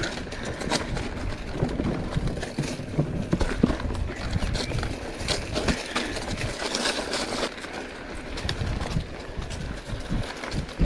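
Mountain bike riding over a dry dirt trail: tyres rolling over loose dirt, leaves and twigs, with frequent clicks, rattles and knocks from the bike over bumps and a low rumble.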